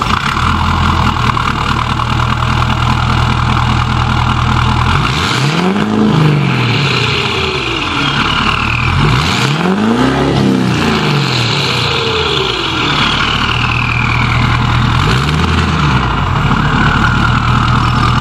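2011 Ford F-250's 6.7 Powerstroke V8 diesel, fitted with a 66 mm turbo and a 10 mm CP4 stroker pump, idling just after a cold start and revved three times. After each rev a turbo whistle falls in pitch as it spools down, a tractor-like diesel sound with a strong turbo note.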